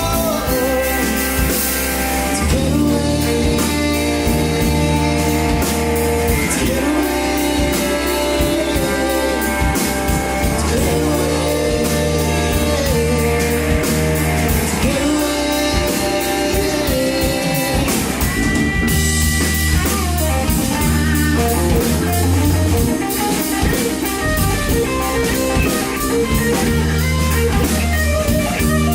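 Rock band playing: electric guitar over bass and a drum kit keeping a steady beat, with a singer's voice at times.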